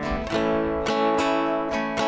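Acoustic guitar strumming chords, a strum every third to half second with the chords ringing on between strokes, changing chord near the start.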